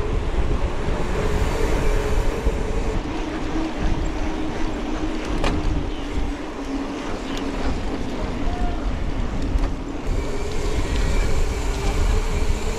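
YT Izzo trail bike ridden fast over a dirt singletrack during a cross-country race: wind buffeting the microphone and tyres and frame rattling over the ground, with a steady buzz, typical of a freewheeling rear hub, that fades in the middle and returns near the end. A single sharp clack about five seconds in.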